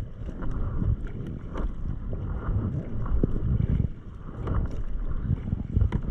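Double-bladed kayak paddle dipping into lake water on alternate sides, splashing and dripping every second or so, over steady wind rumble on the microphone.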